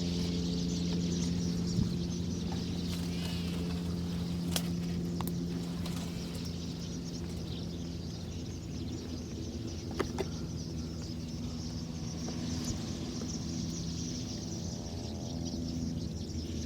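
A flock of birds chattering in a dense high chorus over a steady low droning hum, with a few sharp clicks.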